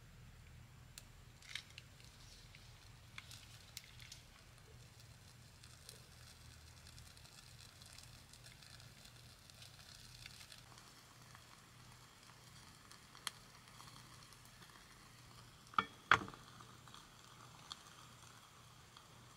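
A few faint lighter clicks, then a cup of solid fuel burning with a faint sizzle and crackle. About sixteen seconds in come two sharp knocks as the cast-iron irori pot is set onto its stand.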